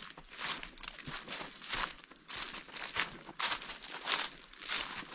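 Footsteps of a hiker walking along a wilderness trail: a regular crunch of each step, about three steps every two seconds.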